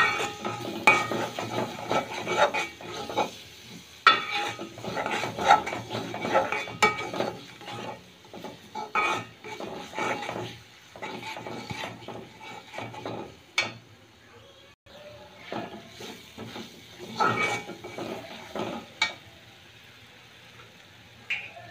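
A steel spatula scrapes and knocks against a metal karahi in irregular runs of strokes as a spice paste is stirred and fried, with the paste sizzling. The stirring stops briefly a little past the middle and thins out near the end.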